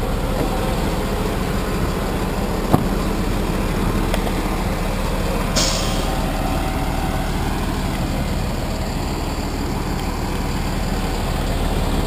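Freightliner M2 tow truck's diesel engine idling steadily with the PTO engaged. There is a sharp click about three seconds in and a short hiss about halfway through.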